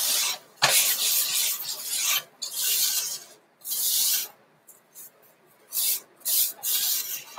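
Paper towel rubbing round the inside of a cast iron skillet in a series of wiping strokes, spreading a little oil over the pan after cleaning.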